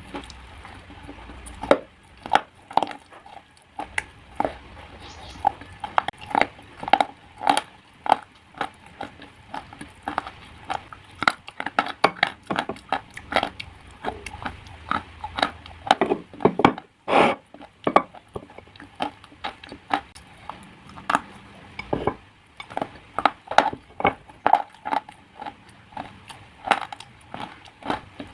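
Crunching of slate being bitten and chewed close up: irregular sharp cracks, several a second, with a denser, louder stretch of crunching about 17 seconds in.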